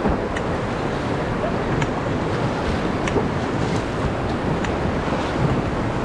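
Rushing river water around an inflatable raft with wind buffeting the microphone, steady throughout, and a few faint splashes as the crew paddles forward.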